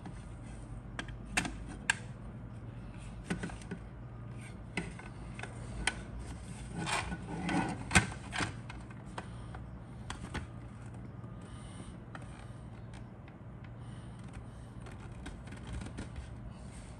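Plastic model-kit parts handled and pushed together in a dry fit: scattered light clicks and knocks, with a stretch of rubbing and scraping about seven seconds in that ends in a sharp click near eight seconds. A steady low hum runs underneath.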